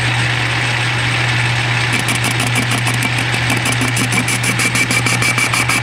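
Metal lathe running with a steady motor hum while a carbide-insert tool turns the rough cylinder head casting down to diameter. About two seconds in the cut takes hold, adding a faint steady high ringing tone and rapid even ticking, about seven a second.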